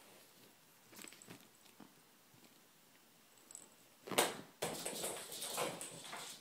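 A few soft taps, then about four seconds in a sudden burst of rustling and scuffling: a cat scrambling off a couch after its thrown toy, with the phone being jostled.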